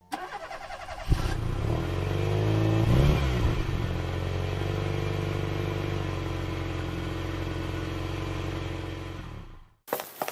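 Tractor engine starting, catching with a jump in loudness about a second in, and revving up and back down around three seconds. It then runs steadily until it cuts off abruptly near the end.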